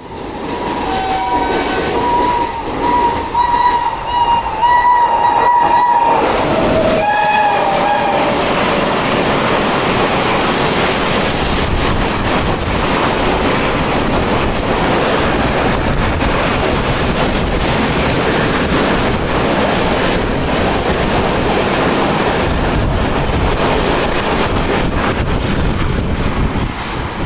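WAP-7 electric locomotive sounding its horn in a long blast, then a shorter, lower-pitched blast about seven seconds in. After that comes the steady rumble and clickety-clack of the train's wheels on the rails.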